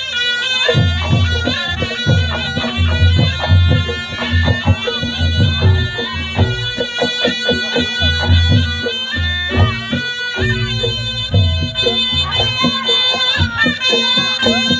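Reog Ponorogo music: a shrill slompret (double-reed shawm) playing a wavering, bending melody over kendang drum strokes and gong beats.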